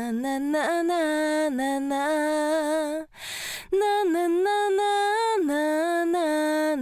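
Unaccompanied female voice singing a 'na na na' melody in long held notes, run through a Universal Audio 1176LN compressor into an LA-2A. There is a sharp breath intake a little before halfway, then the singing resumes.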